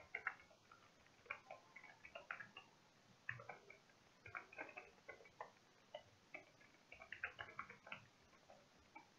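Faint computer keyboard typing: quick, irregular key clicks in short runs with brief pauses between them.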